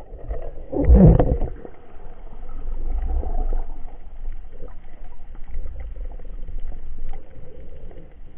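Muffled underwater rumble and knocking picked up by an underwater action camera as its weighted line is pulled and the camera is dragged over the bottom, with one heavy thump about a second in.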